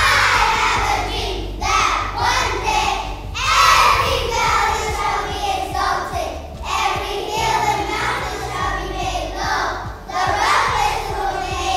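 A group of first-grade children singing together in unison, in phrases with short breaks between them.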